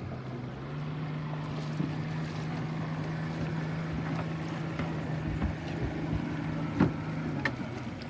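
Boat engine running steadily, its pitch stepping up slightly about a second in and dropping back near the end, with a few sharp knocks, the loudest near the end.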